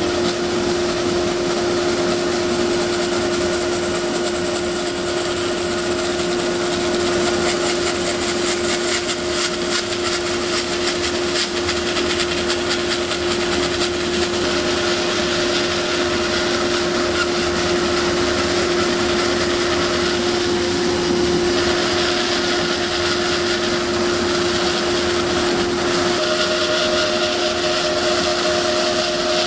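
Oliver bandsaw resawing a thick blank of dense live oak into veneers: a steady running hum with the blade cutting slowly through the wood.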